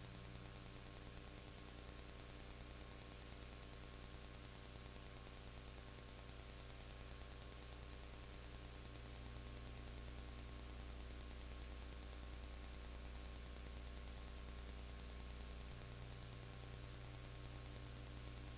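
Steady electrical mains hum with even hiss, the noise floor of an old home-video recording. No game sounds, crowd or voices can be made out above it.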